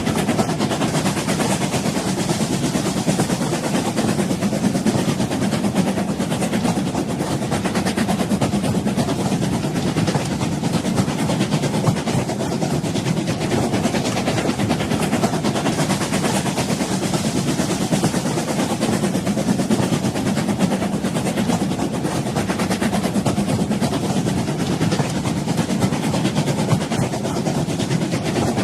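A train running steadily on rails: a dense, even rumble with a continuous fine rattle of wheels and cars.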